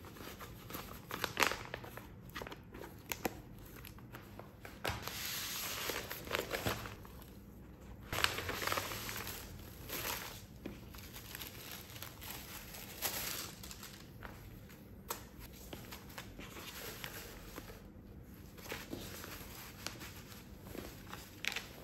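Plastic packaging bags crinkling and rustling, with fabric rustle and small clicks, as hands handle and unfold cycling clothing; the crinkling comes in irregular handfuls, loudest about five and eight seconds in.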